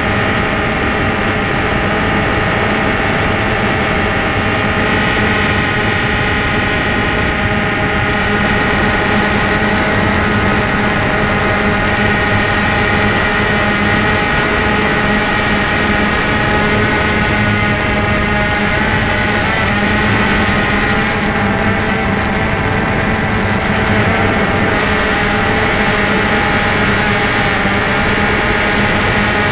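A DJI Phantom 2 quadcopter's four electric motors and propellers whine steadily, heard close from the camera mounted on the drone. The pitch wavers briefly about twenty seconds in as the motor speeds change.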